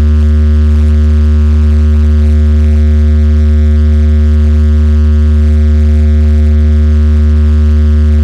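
Loud, steady low bass drone with a stack of higher overtones, held on one unchanging pitch through a large PA loudspeaker-box sound system.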